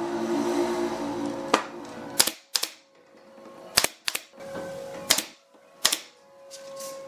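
Pneumatic brad nailer driving brads into the wooden chair frame: about eight sharp shots at uneven intervals, starting about a second and a half in, over soft background music.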